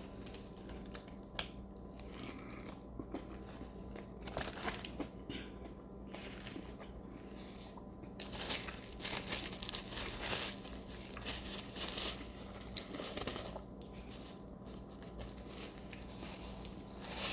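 Eating a fast-food burger close to the microphone: chewing, with the paper wrapper crinkling and rustling in irregular bursts that get busier about eight seconds in.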